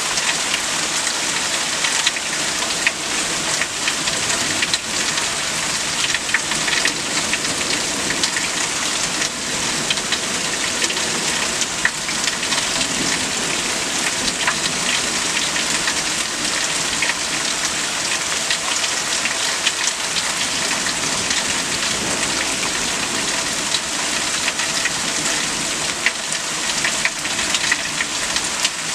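Heavy thunderstorm rain falling steadily, with many short, sharp drop ticks through it.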